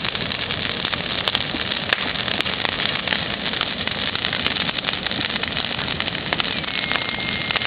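Campfire burning: a steady hiss of flames with many quick crackles and a few sharper pops of burning wood.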